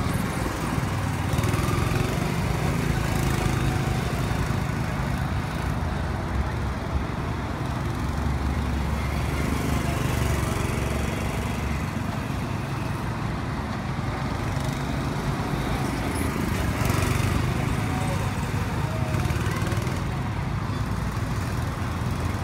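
Go-kart engines running steadily as several karts lap the track, passing close and pulling away again.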